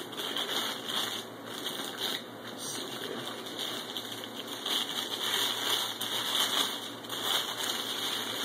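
Clear plastic bag crinkling and rustling irregularly as it is handled and pulled off an amplifier.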